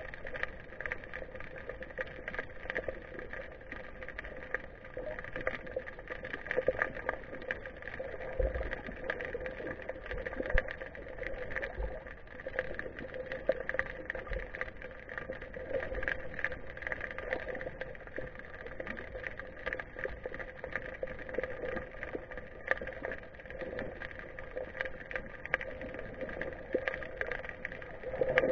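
Underwater sound picked up through a GoPro's waterproof housing: a steady hum with a dense, constant crackle of fine clicks, and a few dull low thuds about a third of the way through and around the middle.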